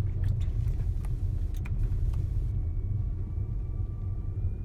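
Low, steady rumble of a Tesla Model S P85D driving up a snow-covered hill, heard from inside the car, with a few light clicks in the first half and a faint high-pitched whine coming in about halfway.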